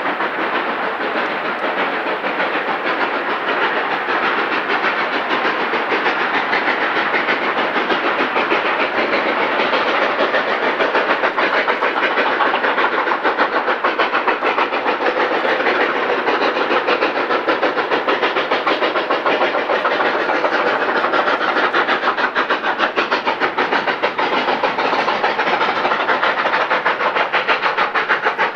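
Narrow-gauge K-36 class steam locomotive 487 working steam, its exhaust beating in a rapid, even rhythm that grows a little louder over the first ten seconds, then holds steady.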